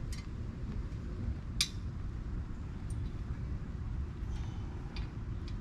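A few light metallic clinks, one sharper than the rest about a second and a half in, from tools and metal parts as the bolts of a metal patio table are tightened. A steady low rumble runs underneath.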